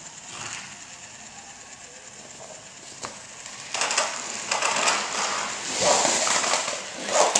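Battery-powered Defiants toy 4x4 monster trucks driving on a plastic track, their small geared motors whirring and rattling. The sound starts about three and a half seconds in and then swells and dips several times.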